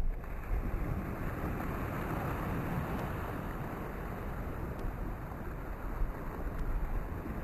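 Wind buffeting a camcorder microphone: a steady low rush with small gusts.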